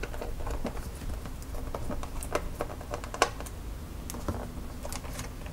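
Light, scattered clicks and taps of hands handling the plastic parts of an opened ASUS R103BA laptop and a small screwdriver, with one sharper tap about three seconds in.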